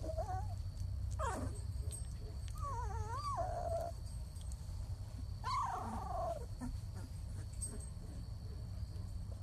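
Newborn Labrador puppies whimpering and squeaking in their sleep: four short, wavering cries over a steady low hum.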